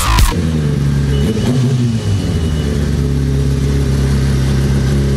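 Sport motorcycle engine running steadily at idle, loud, with a slight rise in revs about a second in.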